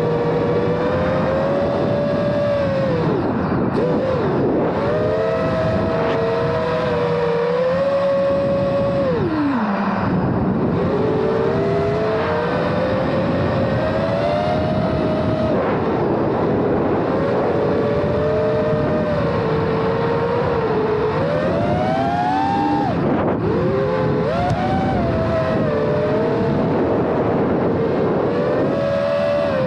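FPV quadcopter's motors and propellers whining, the pitch rising and falling with the throttle, the separate motors' tones splitting apart and rejoining. About ten seconds in the pitch drops sharply, as on a throttle cut, then climbs back.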